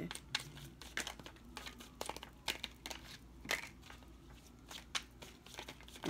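Tarot cards being handled between readings: irregular light snaps, taps and rustling of the cards.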